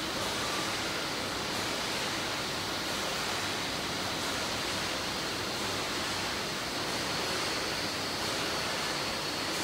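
Steady factory-hall machinery noise: an even rushing hiss with a faint high whine held over it.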